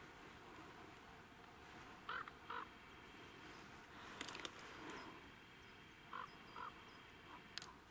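A crow calling in flight: two pairs of short caws, about four seconds apart, faint over a low outdoor hiss. A few sharp clicks come in between the calls.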